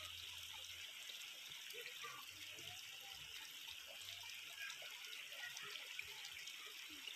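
Shallow stream trickling steadily over stones and mud, a faint even water hiss.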